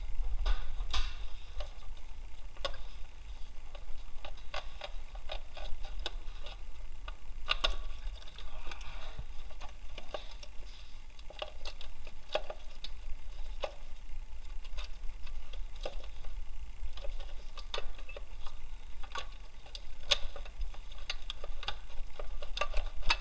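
Irregular clicks and light taps of hand tools and bolts being worked on an engine, over a low steady rumble.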